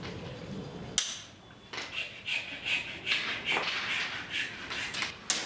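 Light, irregular rustling and clatter of dry cane stems being handled, with a sharp click about a second in and another near the end.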